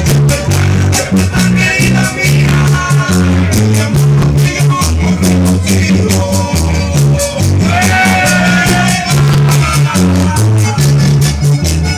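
Latin dance music playing: a bass line under an even, steady percussion beat, with a melody line entering about two-thirds of the way through.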